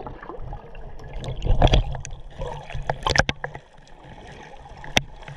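Water gurgling and sloshing around a camera held just under the sea surface, heard muffled through the water. A low rumble runs for the first three seconds or so, with a few sharp clicks and knocks scattered through it.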